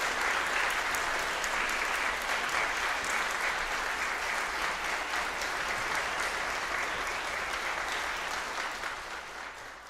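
Audience applauding: dense, steady clapping that starts to die away near the end.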